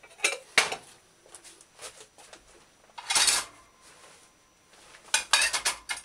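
Ceramic bowls and metal utensils being handled on a kitchen countertop: a few sharp clinks, a short louder clatter about three seconds in, and a quick run of clinks and knocks near the end.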